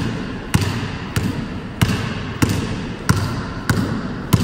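A basketball dribbled low on a hardwood gym floor in an in-and-out crossover drill: seven evenly spaced bounces, about two-thirds of a second apart, each echoing briefly in the gym.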